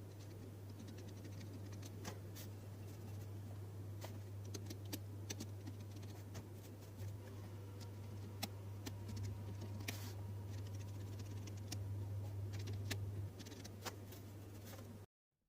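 Scattered small clicks and scratches, as of plastic keyboard parts and keycaps being handled and cleaned, over a steady low hum. It cuts off suddenly near the end.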